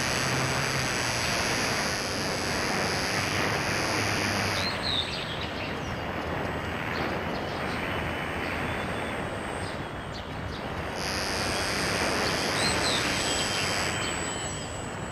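Small battery-powered RC airplane in flight: its electric motor and propeller whine over a steady rush of air. The high whine drops out for several seconds in the middle and comes back near the end.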